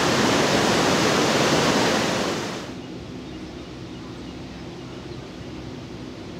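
Loud, steady rush of water, like a mountain stream or waterfall. It cuts off about two and a half seconds in to a quieter outdoor background with a faint, steady low hum.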